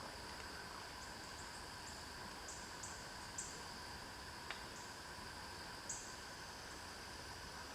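Woodland insects, crickets among them: a steady high-pitched drone with short, high chirps at uneven intervals, and one faint click about halfway through.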